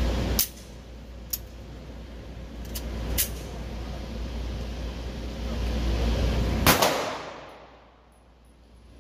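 Sharp metallic clicks of a 9mm Canik TP9 Elite SC pistol being loaded and handled, then a single gunshot from it about two-thirds of the way in.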